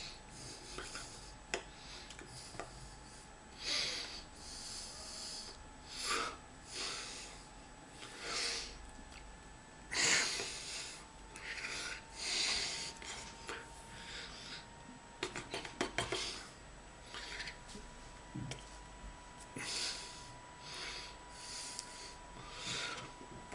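A man breathing in short, irregular puffs through nose and mouth, with small mouth noises, about one every second or two.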